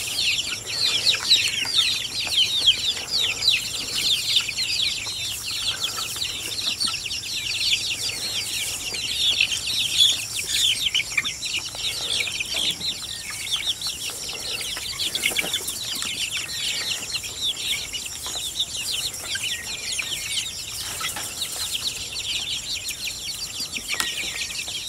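A flock of young chickens peeping continuously, many short, high, falling cheeps overlapping one another.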